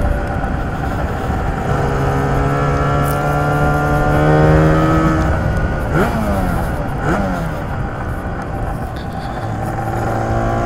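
Lambretta TargaTwin 275cc scooter's twin-cylinder two-stroke engine running under way, its note climbing steadily over the first few seconds. The note swoops sharply twice, about six and seven seconds in, then settles lower.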